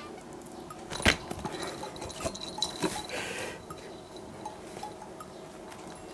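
Small bell on a cat's collar jingling as the cat leaps and bats at a dangling toy, with a sharp knock about a second in and a short rustle around the middle.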